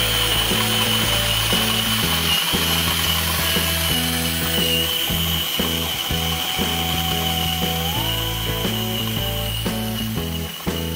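Ryobi cordless drill turning a roller grain mill that crushes malted barley: a steady high motor whine over the rattle of grain being cracked between the rollers. Background music with shifting chords plays along.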